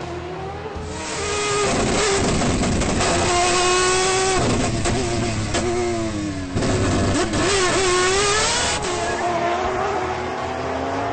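Race car engine revving hard, climbing in pitch and then dropping back several times as the car works up and down the gears, heard largely through the in-car camera.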